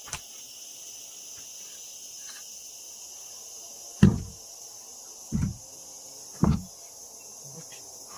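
Steady high-pitched drone of insects, broken about halfway through by three dull thumps a second or so apart.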